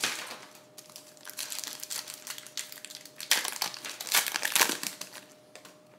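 Foil wrapper of a trading-card pack crinkling as it is torn open and peeled apart by hand, in bursts, loudest from about three to five seconds in.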